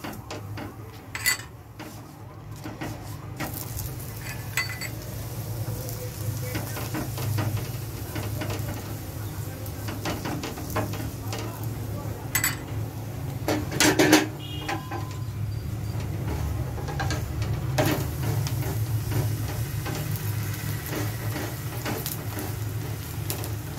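Paratha sizzling on a hot iron tawa over a gas burner turned up high, with a steady low hum under the frying. A metal spoon and a wooden spatula scrape and tap against the griddle now and then; the loudest clatter comes about fourteen seconds in.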